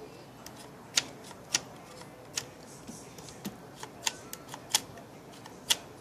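Irregular sharp clicks and clacks, about a dozen, the loudest four standing out, as metal parts of a gun action and its rod lever are handled and fitted into a wooden stock.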